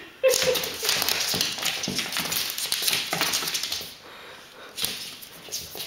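A cat's paws and claws scrabbling and tapping on a hardwood floor as it chases a laser dot: a rapid run of clicks and taps that eases off after about four seconds, then a couple of short scuffles near the end.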